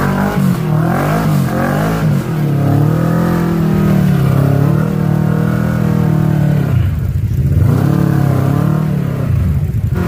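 Kawasaki Teryx KRX 1000 side-by-side's engine revving up and down in uneven throttle bursts as it crawls up a steep rock ledge, easing off briefly about seven seconds in.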